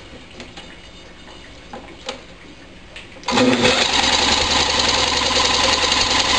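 Electric drill spinning a lawnmower engine over, starting suddenly about three seconds in as a loud, steady motor run. The engine is being cranked on HHO (hydrogen) gas and does not catch. Before that, a few light handling clicks.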